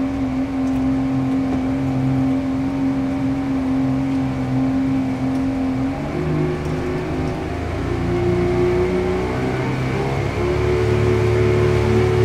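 Boat's outboard motor running under way, its pitch rising about halfway through and again near the end as it speeds up.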